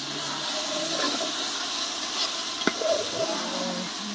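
Food sizzling in a biryani cooking pot over a fire: a steady hiss.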